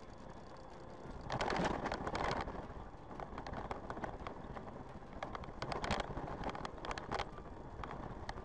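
Car driving: a steady interior road noise, with two spells of rapid clicking and clattering, the first and loudest a little over a second in, the second around six to seven seconds in.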